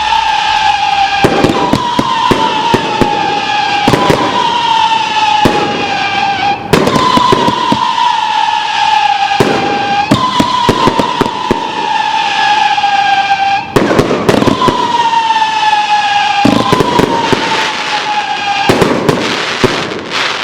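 Banshee 30-shot XL aerial cake firing a run of screamer shots: shrill whistles, each falling slightly in pitch over a second or two, one after another, with sharp bangs of the shells breaking in between.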